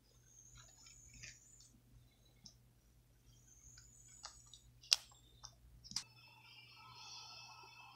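Bristle brush strokes scratching softly through a cat's fur, then two sharp clicks about five and six seconds in.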